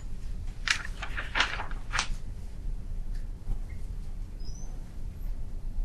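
Steady low hum of a lecture recording during a pause in speech, with three short hissing noises in the first two seconds and a faint high chirp about four and a half seconds in.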